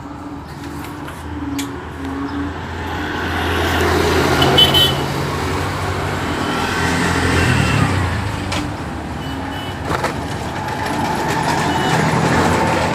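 Road traffic: a motor vehicle's engine grows louder as it passes close by, with a short horn toot about five seconds in. Another vehicle comes up near the end.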